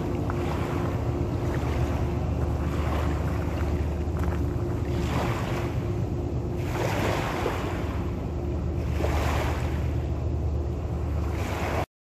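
A boat's engine running steadily under rushing, splashing water that swells every couple of seconds, with wind buffeting the microphone. The sound cuts off abruptly near the end.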